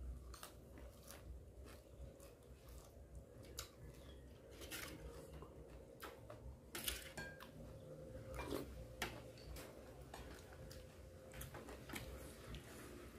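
A person eating boiled beef tendon with fresh herb leaves: chewing with small wet mouth clicks, and a metal spoon clinking and scraping on a stainless steel tray. The loudest clink comes about seven seconds in.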